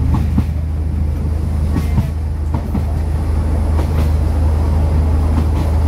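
SNCF X 2100-series diesel railcar running along the track, heard from the driver's cab: a steady low engine drone under running noise, with a few sharp clicks scattered through it.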